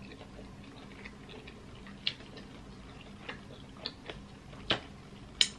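Close-up mouth eating sounds: a handful of sharp, scattered smacks and clicks as sauce is sucked off the fingers, the loudest near the end, over a faint steady hum.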